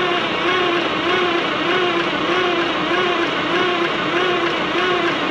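Cummins 400 Big Cam IV inline-six diesel being cranked on its starter motor without firing. The starter whine rises and falls in an even rhythm, a little under twice a second, as each cylinder comes up on compression.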